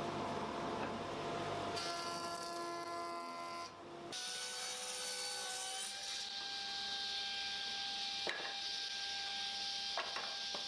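Woodworking power tools working hardwood in a series of short cuts, each a steady motor hum with the noise of wood being cut or rubbed. A couple of sharp knocks come near the end.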